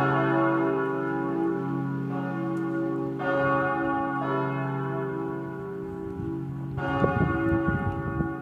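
Full peal of four bronze church bells cast by Perner of Passau in 1972, tuned C-sharp, E, F-sharp and A, ringing together with long overlapping hum. Fresh bright strikes come in about three and seven seconds in.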